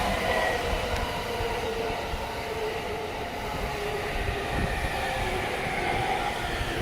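A JR East E231-series ten-car electric train passing over a level crossing: a steady rumble of wheels on the rails with faint whining tones that slide slightly lower in pitch.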